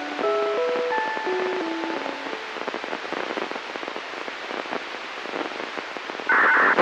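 Old TOA electronic chime of a disaster-prevention radio system, heard through a scanner receiver, playing its last few descending notes and giving way to radio static hiss. Near the end a loud burst of signal tone breaks in, typical of the system's control or answerback signalling, then the sound cuts off.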